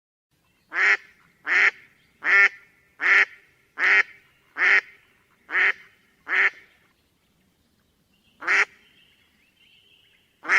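Peafowl giving a series of short, loud honking calls: eight in a quick even run, then two more after a pause.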